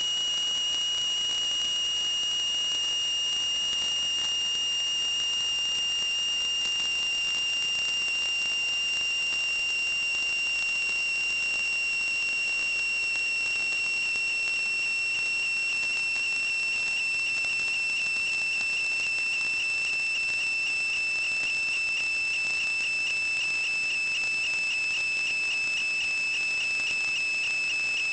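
A continuous high-pitched whistling tone, held without a break and sinking very slightly in pitch, with a faint fast flutter coming into it near the end.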